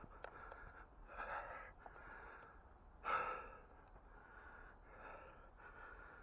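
A person breathing hard and out of breath, close to the microphone: a series of heavy breaths every second or two, the loudest about three seconds in.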